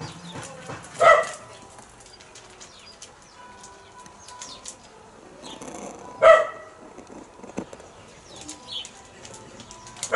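A dog barking in the background: single short barks, three of them about five seconds apart. Faint clicks and a few short high chirps come between them.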